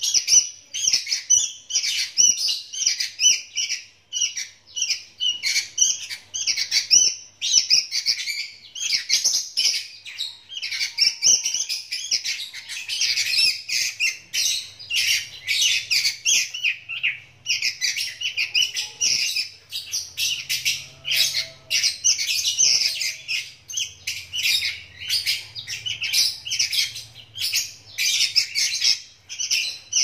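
Young sooty-headed bulbuls (kutilang), about 35 days old, giving a rapid, continuous stream of high chirping begging calls, briefly pausing twice.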